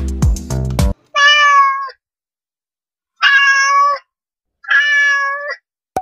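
Background music that stops about a second in, then a domestic cat meowing three times, each meow under a second long, with dead silence between them.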